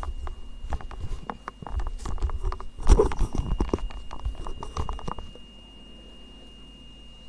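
Microphone being handled and moved into place: irregular rubbing, scratching and knocks with low rumble, which stop about five seconds in, leaving a faint steady high whine.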